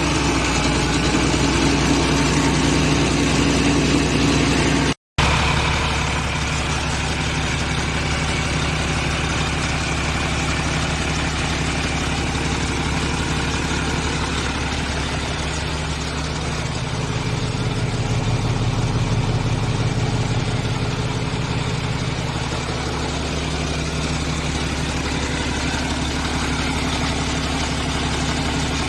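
Isuzu 6HL1 inline-six diesel engine idling steadily just after start-up, after a top overhaul for overheating. The sound cuts out briefly about five seconds in, and the idle swells a little past the middle.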